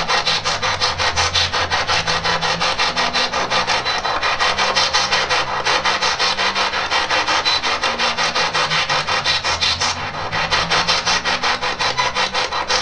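Spirit box radio sweeping rapidly through FM stations: loud hissing static chopped into even pulses several times a second, with faint snatches of broadcast tone between the pulses.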